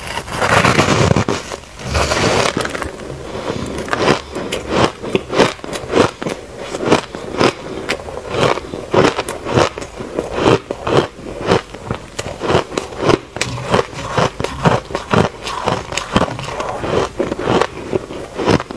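Compressed shaved ice being bitten and chewed close to the microphone: two loud crunching bites in the first couple of seconds, then steady chewing with crisp crackling crunches, about three a second, as the ice breaks up in the mouth.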